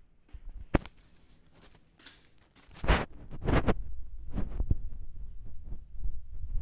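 Handling noise from a phone being moved about: a sharp knock, rustling, then a steady low rumble with more knocks.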